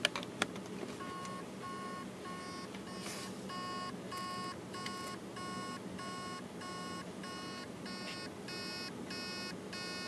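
Seagate 2.5-inch laptop hard drive beeping about twice a second, its spindle motor trying and failing to spin up the platters, most likely because the heads are stuck on a platter, or else a seized spindle bearing. A couple of clicks right at the start as the USB cable is plugged in.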